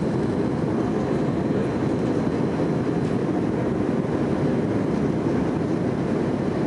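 Steady cabin noise inside an Airbus A300 airliner climbing after takeoff: its jet engines and the air rushing past the fuselage make an even, deep roar.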